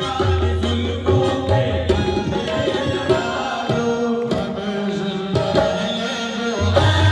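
Live qawwali music: harmoniums playing a melody over a steady hand-drum rhythm, in an instrumental passage between sung lines.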